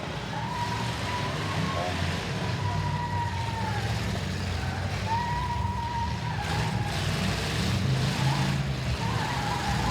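Several big domestic demolition-derby cars' engines running together as a low, rough rumble, with a high steady whine in two long stretches over it.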